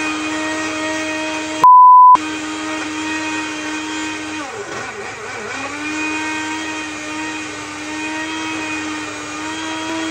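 Single-serve blender motor running with a steady hum, struggling with an overpacked cup of fruit, broccoli and protein powder in a little water. About four and a half seconds in its pitch sinks and wavers for about a second as it bogs down, then climbs back. Near the start a short, loud steady beep briefly blanks out the blender.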